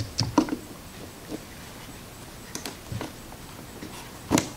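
Scattered light clicks and taps from a small metal tool and fingers working a rubber boot down around the fuel pump fittings, with a louder knock near the end.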